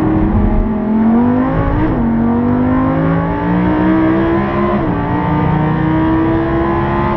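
Lamborghini Huracán's V10 engine heard from inside the cabin, accelerating hard at full throttle with its pitch climbing steadily. It drops sharply twice, about two and five seconds in, as the gearbox upshifts.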